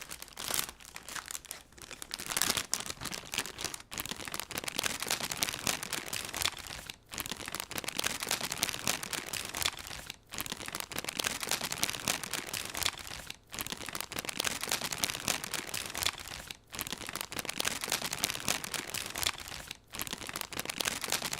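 Crinkling and crackling of ornament packaging being handled and torn open, close to the microphone, broken by a brief drop-out about every three seconds.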